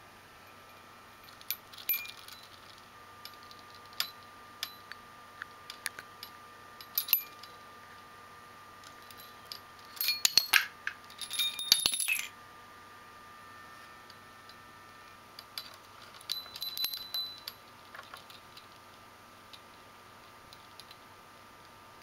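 Small metal toy bells jingling and clinking as a budgie pecks and knocks them, in scattered strikes with a busy flurry about halfway through and another shorter one a few seconds later.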